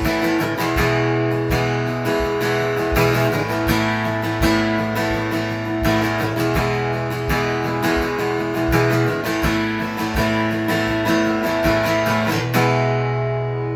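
Instrumental worship music led by strummed acoustic guitar in a steady rhythm. Near the end the strumming stops on a final chord that is left to ring out.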